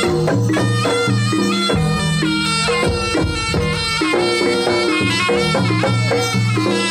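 Live jaranan (kuda lumping) accompaniment: a reed shawm (slompret) plays a moving melody over steady low tones and repeated drum strokes.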